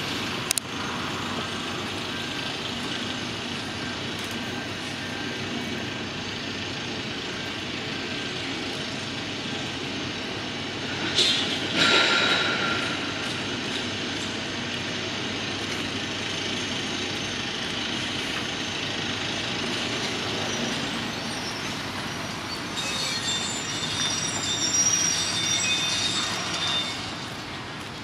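Construction site ambience: a steady hum of machinery and city traffic, broken by a sharp click just after the start, a short high metallic squeal midway, and a longer run of high metallic squealing and screeching near the end.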